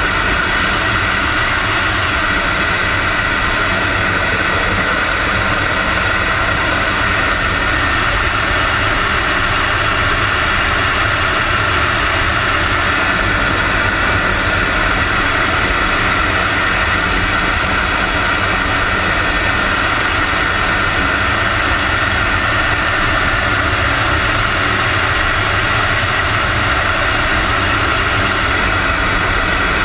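Model jet turbine engine of a radio-controlled Aermacchi MB-339 scale jet running steadily in flight: a high whine over a constant rush of airflow, heard from inside the model's cockpit. The whine shifts slightly in pitch a few times as the throttle changes.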